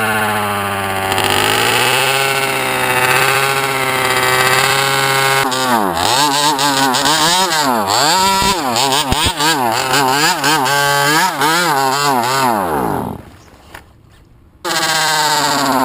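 Small 23cc two-stroke engine of an HPI Baja 5B RC car running unevenly, its revs wavering and then swinging rapidly up and down. About 13 s in the pitch falls away and the engine dies out; a second and a half later the sound comes back abruptly.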